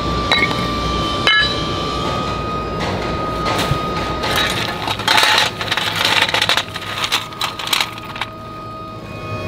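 Hard silvery-grey metal lumps clinking and clattering as gloved hands handle them, with two sharp ringing metallic clinks about a second apart near the start and a busier stretch of irregular clatter in the middle. A steady high factory hum runs under it.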